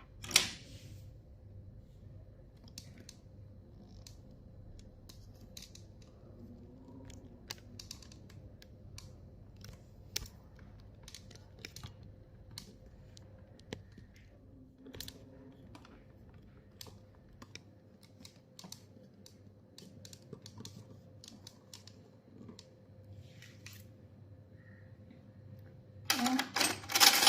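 Scattered light clicks and taps of small sewing machine presser feet being picked up and handled in their case, with a louder burst of clattering near the end.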